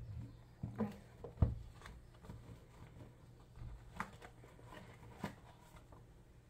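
Cardboard album packaging handled by hand: a few light knocks and scrapes as a tight-fitting piece is worked out of its box, with one thump about a second and a half in.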